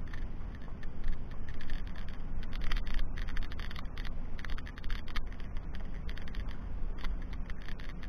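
A vehicle travelling along a gravel farm track: a steady low rumble with irregular crunching, scraping and rattling.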